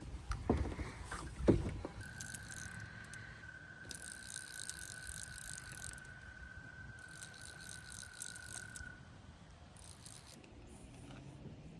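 Fly reel's drag letting out line with a steady whine and rapid clicking for several seconds as a hooked striped bass runs. There are two low knocks in the first second and a half.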